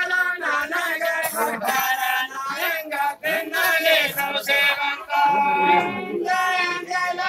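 Voices singing together, a song with long held, wavering notes.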